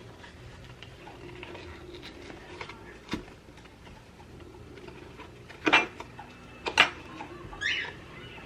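Kitchenware being handled: a few sharp clinks and knocks of dishes and utensils, the two loudest close together past the middle, with a brief high squeak near the end.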